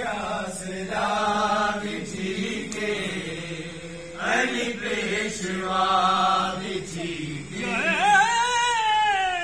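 A man singing slow, drawn-out, chant-like phrases over a steady low drone. The longest and loudest held note comes near the end and then stops.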